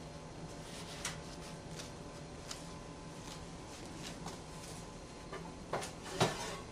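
A low steady hum with a few faint light clicks, then near the end two sharper knocks as a metal loaf pan is handled at the open oven rack.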